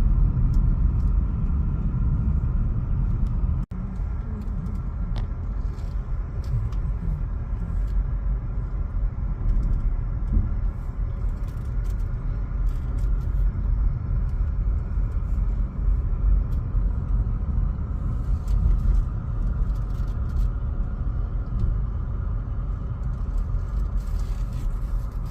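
Car driving, its steady low road and engine rumble heard from inside.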